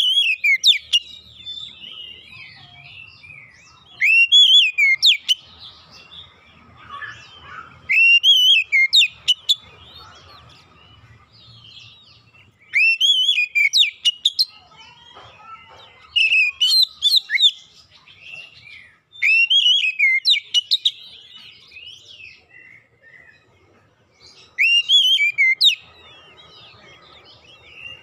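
Oriental magpie-robin singing: loud phrases about every four seconds, each a few rising-and-falling whistled notes with quick, very high notes over them, and softer chattering between the phrases.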